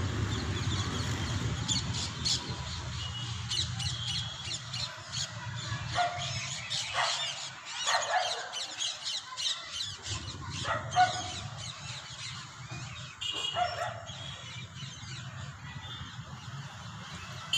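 Birds calling: many quick high chirps throughout, with a few louder, harsher calls about six to eight seconds in and again around eleven and thirteen seconds, over a low steady hum.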